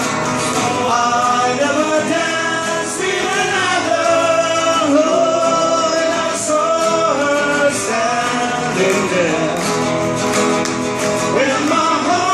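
A men's vocal group singing together in harmony, backed by strummed acoustic guitars, in a live pop song performance.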